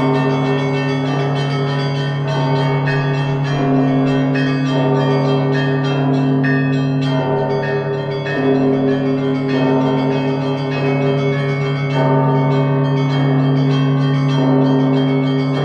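Russian Orthodox church bells ringing a full peal (zvon). Small bells are struck in a rapid, rhythmic pattern over the steady, deep hum of the large bells, while the mid-sized bells come in about once a second.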